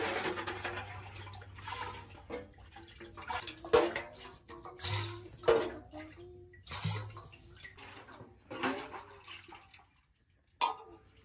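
Water pouring from a terracotta jug into an aluminium pot, the rush fading out over the first couple of seconds. Then come several short separate splashes and knocks as the jug and pot are handled.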